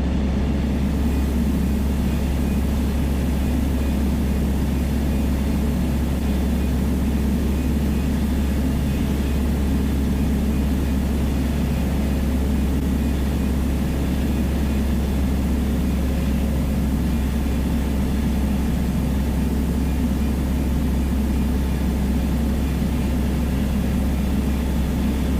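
Steady drone of a Piper Dakota's single piston engine and propeller in cruise flight, heard inside the cockpit, holding an even pitch and level.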